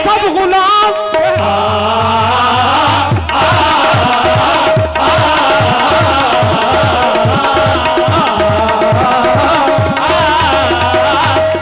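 Qawwali music: tabla keeping a steady beat under a held harmonium note and wavering melodic lines of voices.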